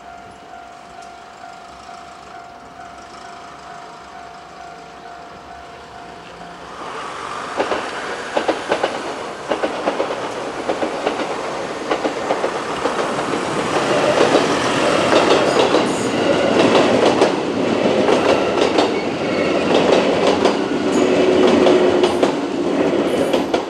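Six-car 221 series electric train running over a level crossing, its wheels clicking over the rail joints. The train comes in about seven seconds in and stays loud to the end. Before it arrives, the crossing's warning bell is heard as a steady ringing tone.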